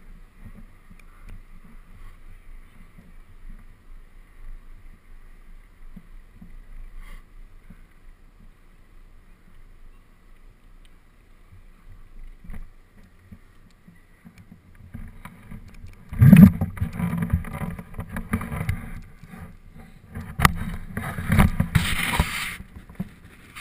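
Mountain bike riding fast with a helmet camera: low tyre and wind rumble, then from about 16 seconds in a much louder jolting and knocking noise, with several sharp knocks near the end.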